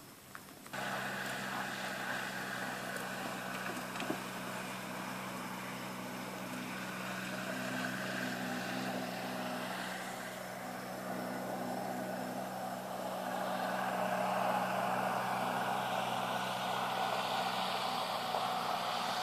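A motor running steadily: a low, even hum with a hiss above it. It starts abruptly under a second in and grows a little louder in the second half.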